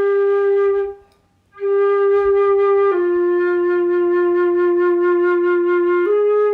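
Concert flute playing sustained notes with a deliberately unfocused, spread tone, the lips opened wider so the sound has no firm core. A short note, a breath, the same note again, then a step down to a lower note held about three seconds, and a step back up near the end, all at an even level.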